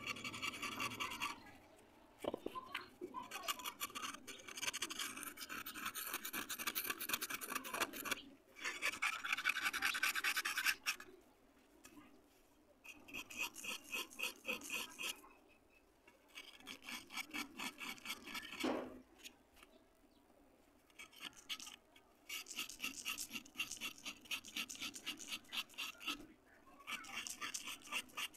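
Small knife blade scraping the edge of a dry red clay ring, quick rasping strokes that crumble it to powder. The scraping comes in runs of a few seconds with short pauses between.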